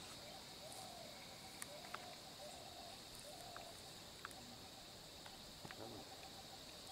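Faint forest ambience: a steady high-pitched insect drone, with a bird calling in short repeated notes during the first few seconds and a few scattered clicks.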